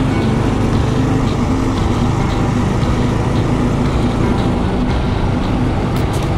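A Trailmaster Hurricane minibike's single-cylinder four-stroke engine running steadily while ridden along a paved road, with a second minibike running alongside.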